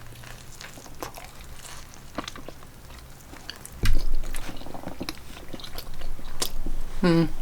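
Close-up chewing of a bite of an Italian sub sandwich: soft wet mouth sounds and small crunches of bread and lettuce. There is a low thump just under four seconds in and a short hummed "mm" near the end.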